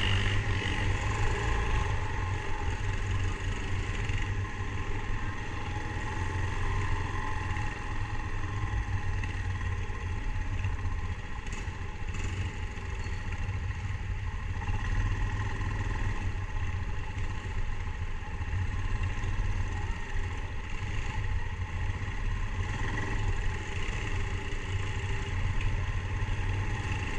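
ATV (quad bike) engine running steadily as the quad is ridden, heard from on board, with a constant low rumble.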